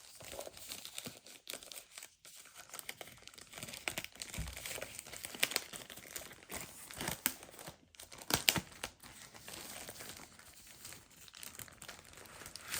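Packaging being opened by hand: irregular crinkling and tearing of wrapping, with a few sharper crackles, the loudest a bit past the middle.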